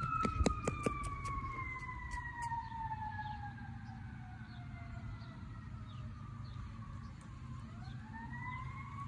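An emergency vehicle's siren wailing: one slow tone that glides down over about seven seconds, then starts to rise again near the end. Under it is a low steady rumble, with a few sharp clicks in the first couple of seconds.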